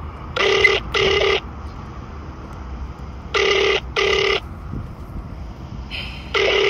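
Telephone ringback tone of an outgoing call heard over a phone's loudspeaker: a double ring, two short tones in quick succession, repeating about every three seconds, three times. It is the sound of the called phone ringing while the call waits to be answered.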